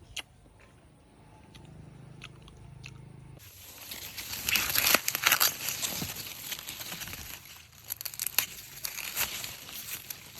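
Plant material rustling and crunching, with many sharp snaps and crackles, as produce is picked and handled by hand. It starts about three and a half seconds in after a quiet stretch with a few faint clicks.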